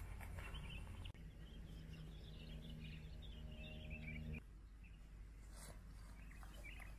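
Faint open-air ambience with a small bird chirping in quick runs of short notes. A low steady hum comes in about a second in and cuts off abruptly a little after four seconds.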